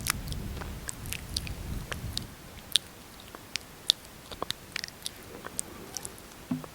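Close-miked wet lip smacks and sticky mouth clicks, lips parting and pressing together with lipstick or gloss on them: many short, irregular clicks, with a soft low rustle in the first two seconds.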